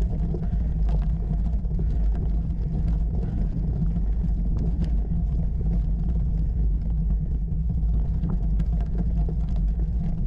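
Steady low rumble of a bicycle riding over a rough gravel track, picked up by a camera mounted on the bike, with faint scattered ticks of stones under the tyres.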